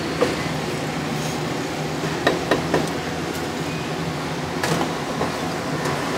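A knife knocking on a thick wooden chopping block as meat and green onion are cut: a few sharp knocks, three in quick succession a little after two seconds in, over a steady background hum.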